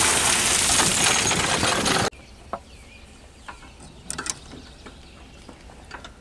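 Rushing river water, a loud steady hiss that cuts off suddenly about two seconds in. After the cut come a few scattered light mechanical clicks.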